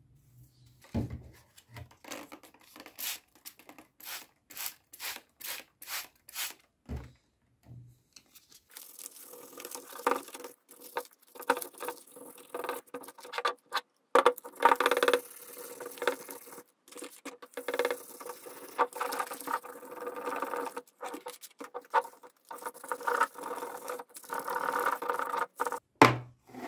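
Brush strokes sweeping across a wooden tabletop, about two a second. Then continuous scrubbing and scraping on an old corroded metal faucet body, ending in a sharp knock near the end.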